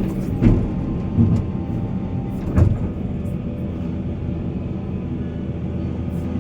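Heavy diesel mining machinery running steadily, with three loud clunks in the first three seconds.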